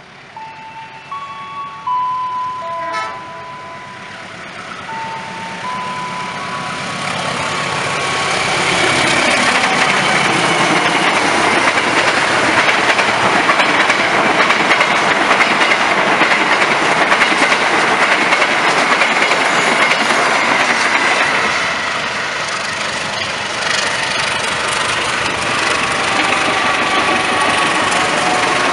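A long passenger train passing at speed, the rumble and clatter of its wheels on the rails building from about six seconds in and staying loud to the end. Before it arrives, a short run of electronic chime notes, stepping in pitch, sounds and fades.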